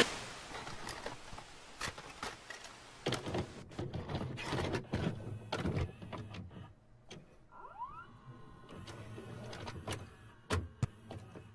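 Faint clicks and clunks from a small motorised mechanism, with a short rising whine about eight seconds in. A hiss fades out over the first second.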